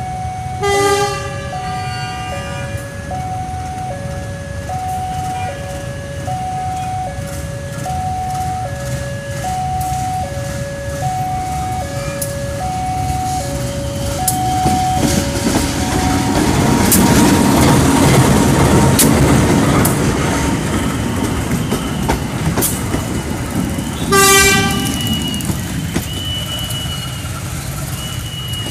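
Level-crossing warning alarm sounding an alternating two-note ding-dong, about two notes a second, which stops about halfway through as a diesel-hauled passenger train passes close by, its wheels running over the rails loudest just after the middle and then easing as it moves away. A horn toots briefly about a second in and again near the end.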